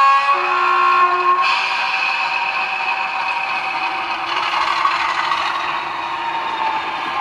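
Model Class 50 diesel's DCC sound decoder, heard through the model's small speaker, sounding a two-note horn blast, a high note then a lower one, for about a second and a half as the train departs. The recorded English Electric V16 engine sound then runs on steadily as the locomotive pulls away.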